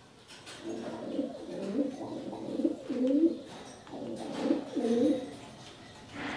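Pigeon cooing: low rolling coos in two bouts, the first starting about half a second in and the second about four seconds in.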